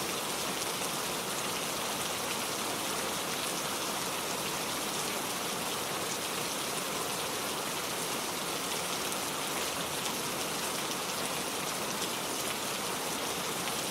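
Heavy rain falling steadily on a surface: a dense, even hiss of drops with fine scattered patter, unchanging in strength.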